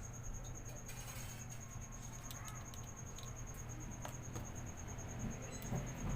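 Faint, scattered light clicks of hand work on a distributor over a low steady background hum.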